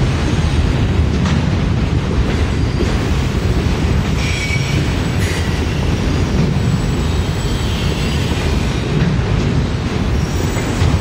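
Autorack freight cars rolling past close by, a steady low rumble of steel wheels on rail. A brief high wheel squeal joins in about four seconds in, and a fainter one near the end.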